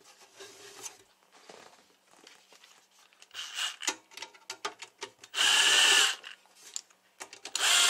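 Cordless driver spinning screws out of a sheet-metal amplifier case in short runs: a brief one about three and a half seconds in, a longer one a couple of seconds later and another near the end, with light handling noises between.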